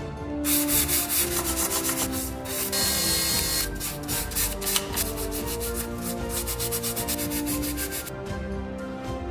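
Fast back-and-forth hand sanding of a small metal flashlight part, several strokes a second, over background music. The sanding stops about eight seconds in, leaving only the music.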